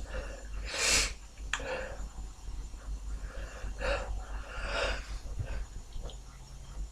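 A person sniffling: one loud, sharp sniff about a second in, then several softer sniffs and breaths through the nose.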